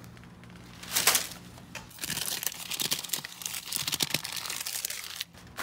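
Paper receipts and napkins being handled and crumpled. There is a loud rustle about a second in, then a run of quick crinkles.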